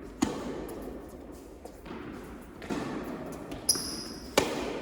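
Tennis ball struck by rackets and bouncing on an indoor hard court: a few sharp pops a second or more apart, each ringing on in the hall's echo, with a short high squeak near the end.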